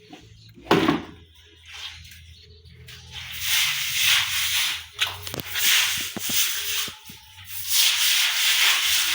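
Broom scrubbing a wet floor in long scraping strokes, each about a second long, with a sharp knock under a second in.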